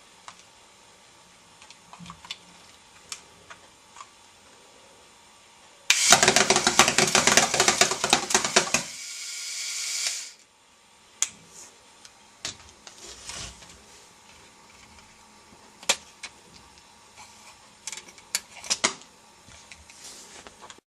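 LEGO rubber-band minigun pistol: scattered plastic clicks, then about six seconds in a burst of fast clattering lasting about three seconds as the barrels cycle and rubber bands fire. A smooth whir follows, rises and stops suddenly, and then come more scattered clicks.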